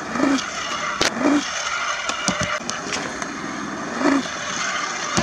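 Stunt scooter wheels rolling and grinding across concrete ramps, with a few sharp knocks of the deck and wheels on the concrete.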